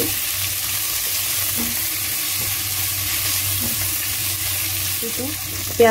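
Chopped onion and garlic sizzling steadily in hot cooking oil in a nonstick pan.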